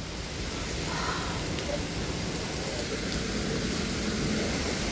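Heavy rain and strong wind from a derecho thunderstorm: a steady rushing noise that grows slightly louder.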